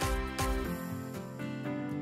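Background music: a steady beat of about two drum hits a second that drops out less than halfway through, leaving held instrumental notes.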